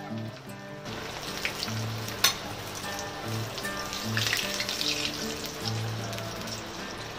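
Breaded potato patties deep-frying in hot oil: a steady sizzle full of small crackles and spits, with one sharp click about two seconds in.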